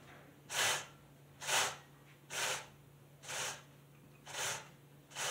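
Saw chain of a Husqvarna 135 Mark II chainsaw pulled by hand round its guide bar with the engine off: six short scraping strokes about a second apart. This checks that the freshly tensioned chain moves freely on the bar.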